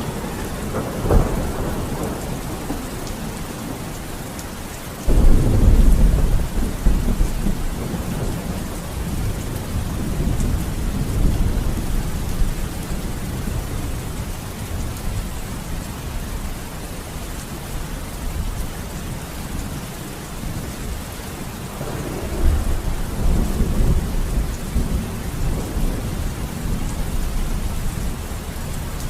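Steady rain with thunder: a sharp crack about a second in, a sudden loud clap about five seconds in that rolls on as a low rumble, and another rumble later on.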